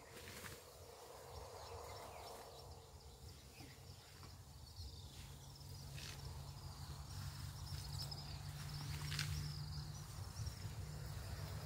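Quiet grassland ambience: insects buzzing, a low steady hum that grows louder from about halfway, and a few sharp snaps of grass or twigs from wild Asian elephants feeding in the grass.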